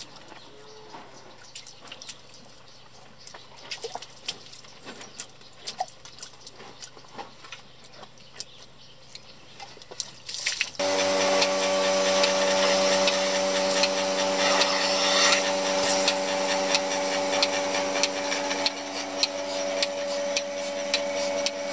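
Faint drips and small clicks while a cow's teats are stripped by hand. About halfway through, a portable milking machine's vacuum pump switches on suddenly and runs steadily, a loud hum with a hiss over it.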